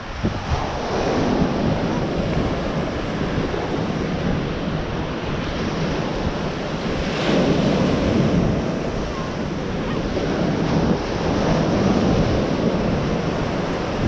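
Ocean surf breaking and washing up the beach, with wind buffeting the microphone. The surf swells loudest about seven seconds in as a wave breaks, and again near the end.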